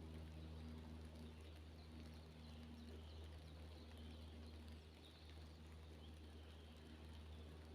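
Near silence: faint forest ambience in light rain, with scattered soft drip ticks over a low steady hum.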